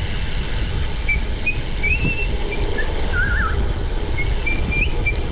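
Steady wind rumble on an action camera's microphone while cycling. Over it, a string of short, wavering high whistled notes at changing pitches, with a lower wobbly phrase about three seconds in.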